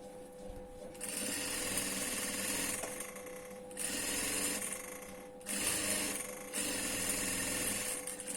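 Sewing machine stitching in several runs of one to three seconds with brief stops between, starting about a second in, over a steady hum. This is edge-stitching a collar seam close to the edge.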